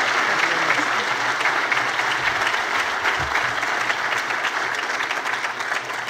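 A large audience applauding, a dense steady patter of many hands clapping that starts to thin out near the end.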